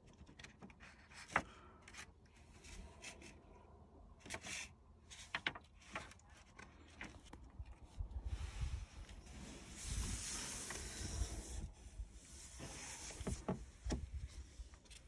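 Brown paper rustling and rubbing as it is smoothed into a deck recess and traced around for a template, with scattered short clicks and taps. A longer stretch of rustling comes about ten seconds in.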